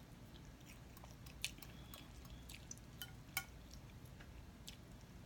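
Faint eating sounds: soft chewing with a few small, sharp clicks, the clearest about a second and a half in and again around three seconds in.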